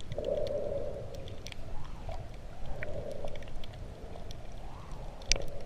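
Muffled underwater sound from a diving camera: a dull water rush that swells and fades, with many scattered sharp clicks and one louder click near the end.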